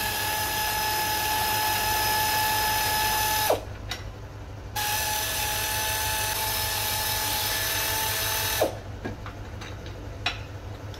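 Pneumatic air ratchet spinning out the bolts of the gearbox stabilizer mounting. It runs in two long bursts of a steady high whine with hissing air, each about four seconds, with a pause of about a second between them. Each burst winds down with a short falling pitch as the trigger is released.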